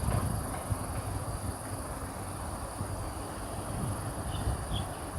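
Windy outdoor background: a steady low rumble with wind buffeting the microphone, and a few short, faint high chirps in the second half.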